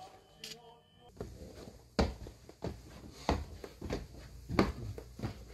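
Footsteps climbing tiled stairs: a steady series of sharp steps with a low thud, about one every two-thirds of a second, starting about a second in.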